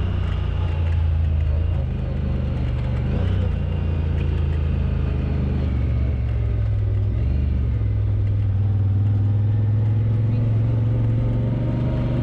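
Off-road vehicle's engine running while driving, a steady low drone whose pitch dips and rises a little with the throttle.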